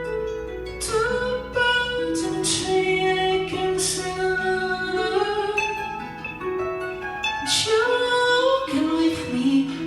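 Live song: a man singing over guitar, the melody held and sliding between notes.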